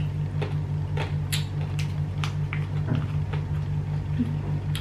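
Scattered short crackles and clicks from squeezing a small plastic sauce sachet and from eating, over a steady low hum.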